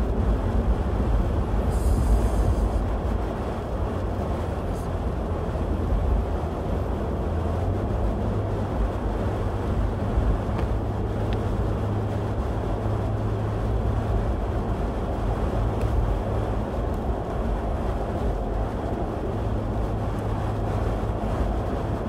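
Steady low rumble of a car's engine and tyres at highway speed, heard from inside the cabin.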